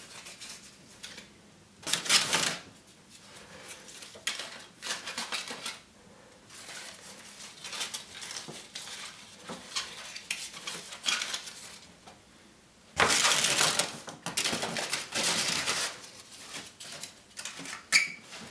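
Dry magnolia leaves crackling and rustling in irregular bursts as they are handled and pressed into place by hand, with the loudest crackles about two seconds in and around thirteen seconds in.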